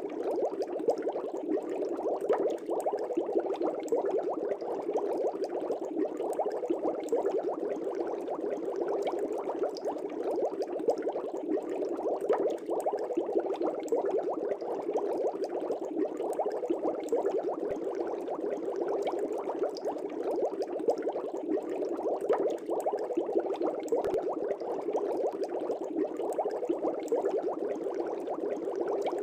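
Aquarium water bubbling steadily: a dense, even stream of small bubbles popping and gurgling at the surface of a fish tank.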